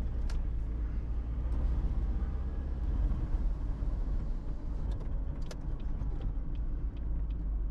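Car driving, heard from inside the cabin: a steady low engine and road rumble. The car has a failing clutch and is short of power.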